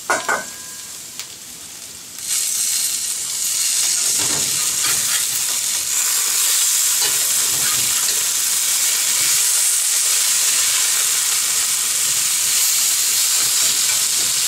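Diced potatoes frying loudly in a hot skillet as they are turned with a metal spatula: a few spatula clanks and scrapes against the pan, then the sizzle jumps up about two seconds in and holds steady.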